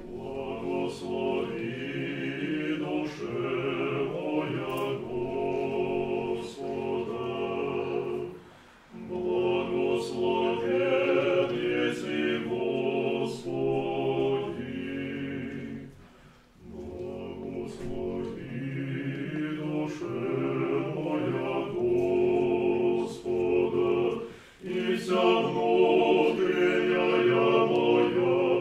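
An Orthodox church choir singing unaccompanied in Russian choral style. The singing comes in phrases of about eight seconds, with short breaks between them.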